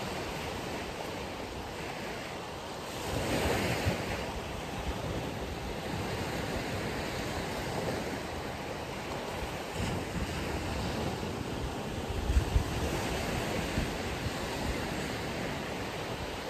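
Ocean surf washing steadily onto the beach, with a wave swelling louder about three seconds in. Wind gusts buffet the microphone, with low thumps about twelve seconds in.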